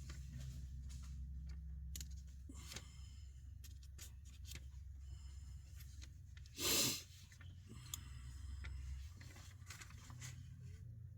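Quiet handling of a paper service manual: faint clicks and one brief rustle of a page being turned about seven seconds in, over a low hum that stops about nine seconds in.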